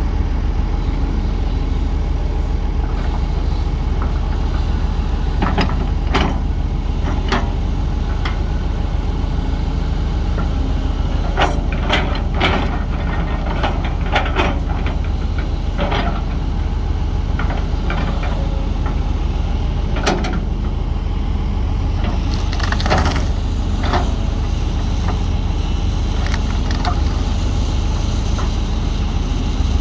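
Heavy diesel machinery engine running steadily, with scattered metallic clanks and knocks, several in a cluster midway.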